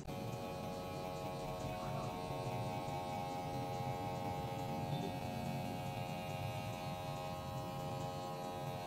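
Cordless electric hair clipper running with a steady buzz while it trims the short hair at the nape.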